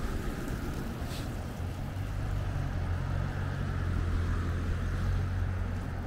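Steady low rumble with a steady hiss above it, and one brief high chirp about a second in.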